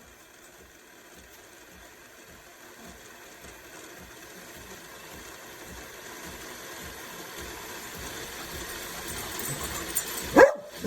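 A steady hiss that grows slowly louder, then a dog barks twice in quick succession near the end.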